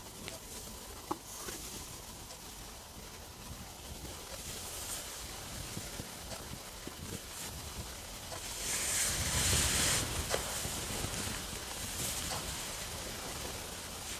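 Stomach rumbling and gurgling during digestion after a meal: scattered small clicks and squelches, with one louder, longer gurgle lasting about a second and a half around nine seconds in.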